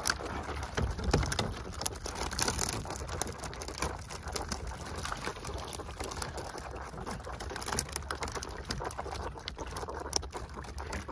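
Seawater splashing, streaming and dripping through the mesh of a long-handled dip net as it is scooped through the water and lifted out, a dense patter with a few louder splashes, over a low steady hum.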